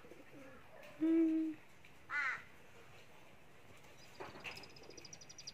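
Birds calling outside: a short, steady hooting note about a second in, a brief rising-and-falling call a second later, and a rapid, high-pitched twittering near the end.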